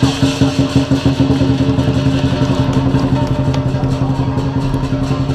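Chinese lion dance percussion, drum with gongs and cymbals, playing a fast, even beat of about five strokes a second over a steady low hum.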